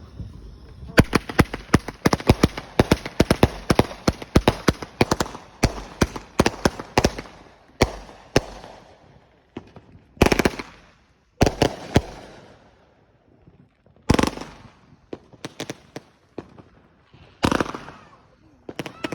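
Fireworks going off: a rapid string of sharp bangs, several a second, starts about a second in and runs for some seven seconds. Then come separate, bigger bangs every second or two, each trailing off.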